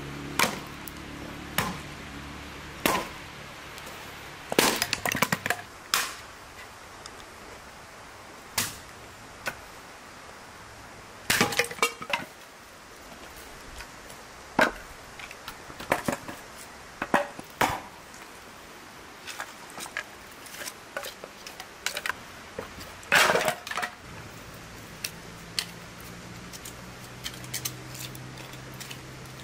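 Irregular knocks and clatters of cooking work with utensils and tools, scattered singly and in short clusters, a few of them with a brief metallic ring.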